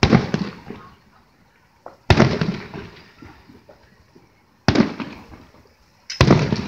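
Aerial firework shells bursting: four sharp booms, the first right at the start, then about two, four and a half and six seconds in, each trailing off over a second or so.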